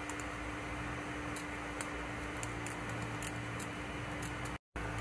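Faint crinkling ticks of a thin metallic tinsel flasher strip being handled, over a steady low hum. The sound cuts out for a moment near the end.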